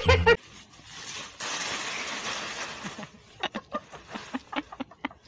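Music cut off abruptly at the start, then a pile of dry fallen leaves rustling with a steady hiss, followed from about three seconds in by a quick run of crisp crunches as feet step through the leaves.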